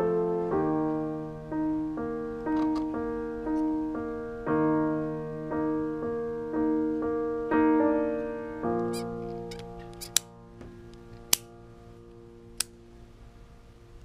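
Slow piano music, one note about every second, fading out about two-thirds of the way through. After it, three sharp clicks a little over a second apart as the 3D-printed PLA carabiner is handled.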